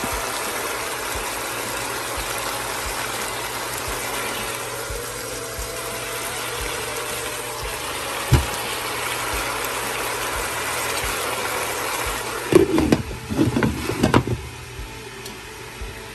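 Steady rushing hiss of pots of beef and lentils boiling hard on the stove. There is a single knock about eight seconds in and a burst of metal-and-glass clattering near the end, where the pot lid is being handled.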